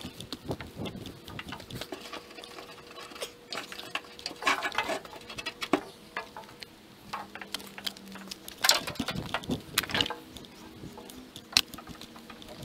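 Tie-down rope being unhooked from a pickup truck's bed and pulled free: irregular rustling and scuffing with light clicks, and a few sharper knocks in the second half.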